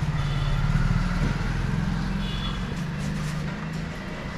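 Steady low engine hum, like a motor vehicle running in the background, whose pitch shifts slightly a couple of times.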